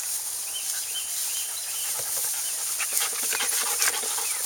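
A dog panting rapidly close by. A bird chirps a few times in the first two seconds over a steady high hiss of insects.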